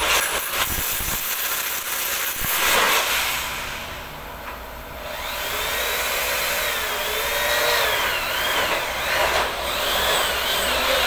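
Power drills working overhead into the head of a sliding-door frame: harsh drilling noise at first, then from about halfway a motor whine that rises and falls in pitch as the trigger is squeezed and eased.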